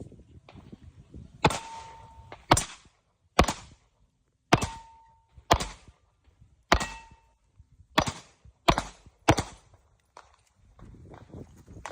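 Pistol fired nine times at an uneven pace of roughly one shot a second, each shot sharp with a short echoing tail; after a few shots a brief ringing tone follows.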